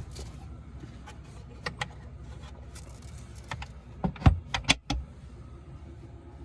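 Footsteps and scuffs of hikers on a rocky trail, a few scattered clicks then a cluster of louder knocks about four seconds in, over a low steady rumble.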